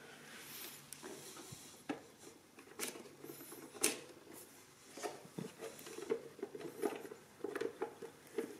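Scattered light clicks, taps and scrapes of hands handling the casing and refitted top cover of a Victor 16-83-54 adding machine, the sharpest click about four seconds in and a cluster of small clicks near the end; the machine itself is not running.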